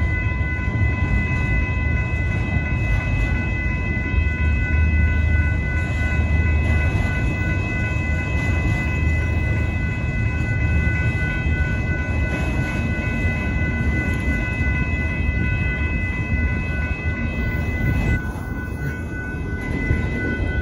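Union Pacific autorack freight cars rolling slowly past a grade crossing, a steady low rumble. Above it rings the crossing's warning bell, a set of steady high tones.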